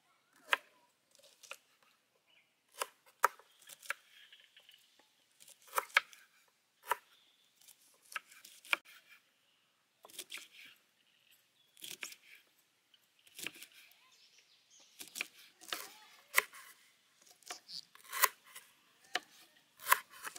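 Kitchen knives chopping long beans and lemongrass on wooden chopping boards: irregular sharp knocks of the blade striking the board, some loud and some soft, with short pauses between runs of cuts.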